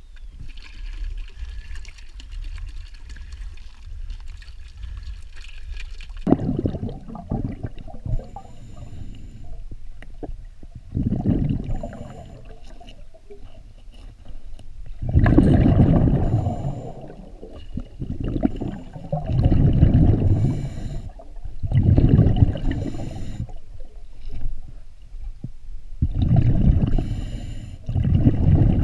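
Diver breathing through a scuba regulator underwater: exhaled bubbles gurgle out in loud bursts every three to four seconds from about six seconds in, with a fainter hiss of inhalation between them.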